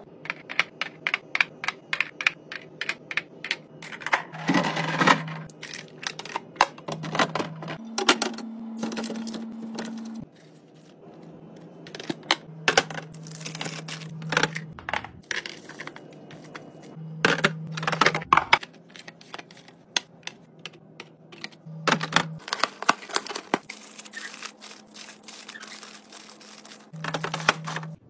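Quick clicks, taps and clatter of food containers, lids and bottles being handled and set into a fridge, with a low steady hum coming and going between the bursts.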